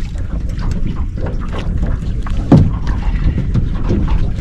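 Wind buffeting the microphone over a steady low rumble of a boat on open water, with scattered knocks and one loud thump about two and a half seconds in.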